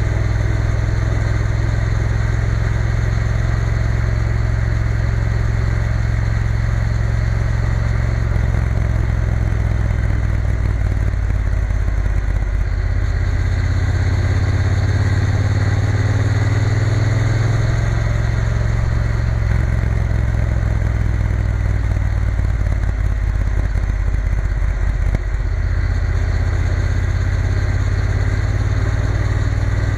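Triumph Bonneville T120 parallel-twin engine running steadily at road speed, with rushing air over it. The engine note changes for a few seconds midway through, then settles again.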